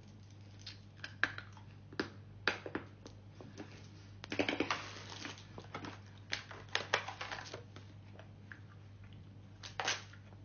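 Someone biting and chewing crunchy food, with irregular crisp crunches and clicks that come thickest about four seconds in and thin out near the end.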